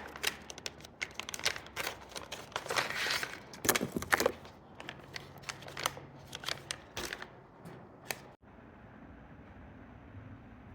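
Rustling, crinkling and small clicks of parts and plastic being handled, irregular and close. The sound stops abruptly about eight seconds in, leaving a faint steady low hum.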